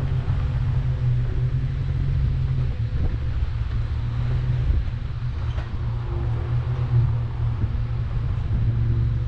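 Chevrolet Colorado ZR2 pickup's engine running with a steady low drone while driving slowly along a dirt trail, with road noise and a couple of faint knocks from bumps.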